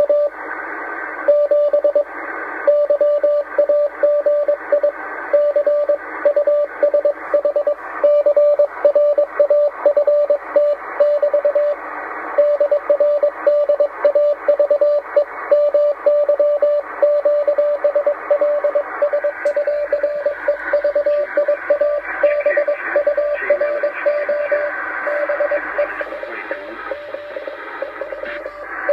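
Morse code received on the 10-metre amateur band: a single-pitch beep keyed on and off in dots and dashes from a radio receiver's speaker, over steady band static that grows louder in the second half.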